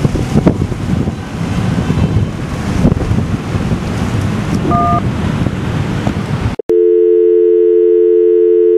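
A broad rushing noise, then about two-thirds of the way in it cuts off suddenly into a telephone dial tone: two steady tones sounding together, held without a break.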